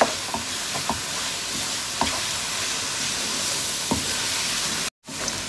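Chicken pieces sizzling in a hot non-stick wok as a wooden spoon stirs them, with occasional knocks and scrapes of the spoon against the pan; the chicken is being browned in its masala (bhuna). The sound cuts out for an instant near the end.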